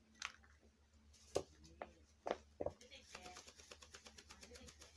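Large-billed crow's beak knocking and tugging at a plastic tape dispenser and its tape: a few sharp separate knocks, then a fast run of small clicks over the last two seconds.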